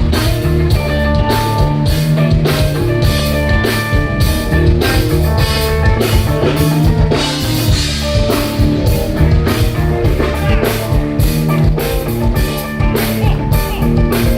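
Live rock band playing an instrumental intro: a steady drum-kit beat with electric guitar and bass, no singing.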